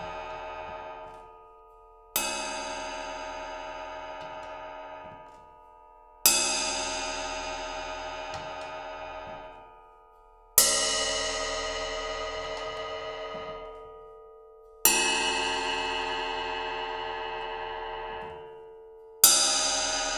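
A Masterwork cymbal struck five times, about four seconds apart, with different drumsticks, hickory wood-tipped sticks and lastly a 5A stick with a plastic tip, each stick giving the cymbal a different tone. Each strike rings out and is choked by hand after about three seconds.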